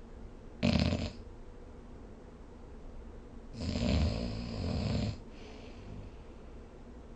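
A person snoring: a short, loud snore about half a second in, then a longer snore of about a second and a half midway through, over a steady low background hiss.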